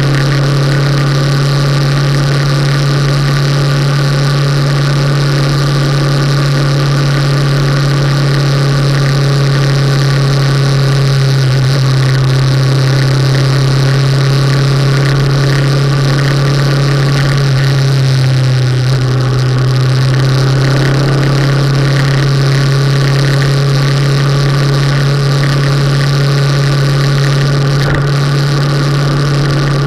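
Motorcycle engine running steadily while the bike is ridden along the road, heard from a camera mounted on the bike, a constant droning note; its pitch sags briefly about two-thirds of the way through and then settles again.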